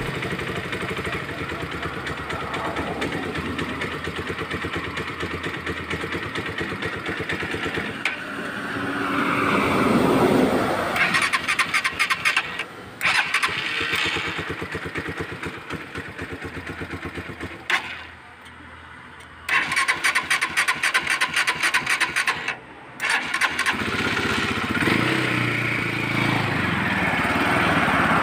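Euro Daan Hari 186 motorcycle engine being cranked over and over, struggling to catch, with short pauses between tries: the hard starting its owner is troubleshooting. It swells about ten seconds in, stutters in fast bursts in two spells, then settles into a steadier pitched running sound near the end.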